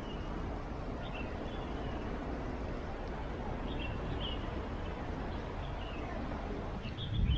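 Outdoor city ambience: a steady background hiss with a few short bird chirps scattered through it, and a brief low rumble near the end.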